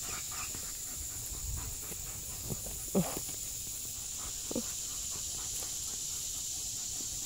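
A puppy giving two short, falling whimpers, about three seconds in and again a second and a half later, over a steady high hiss.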